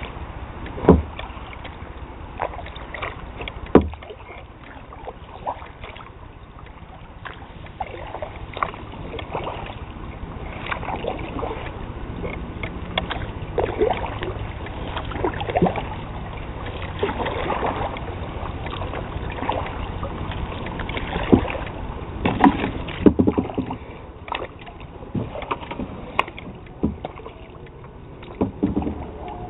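Kayak paddling: the paddle dipping into calm river water with irregular splashes and drips, and two sharp knocks in the first few seconds.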